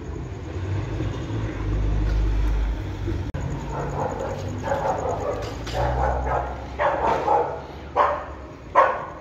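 A dog barking repeatedly, starting about four seconds in, the barks getting louder toward the end. Before that, the low rumble of passing traffic.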